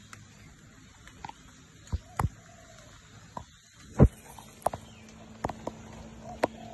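Handling noise on a phone's microphone as a long-tailed macaque grabs and knocks the phone about: a series of sharp knocks and thumps, the loudest about four seconds in.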